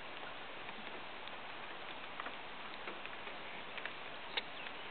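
Light rain: scattered raindrops ticking over a steady hiss, with one sharper tick about four seconds in.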